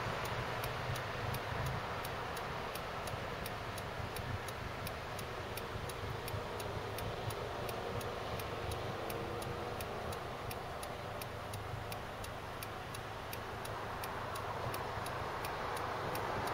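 A car's turn-signal indicator ticking steadily, about three ticks a second, over the low hum of the car idling at a stop and the noise of traffic.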